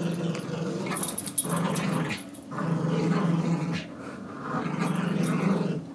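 Dogs growling in play while tugging on a rope toy: low growls in four stretches of about a second each, with short breaks between them.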